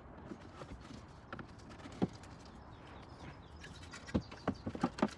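Hands feeling around behind a car's rear bumper: scattered light clicks and taps on plastic and wiring, coming thicker and louder over the last second or so.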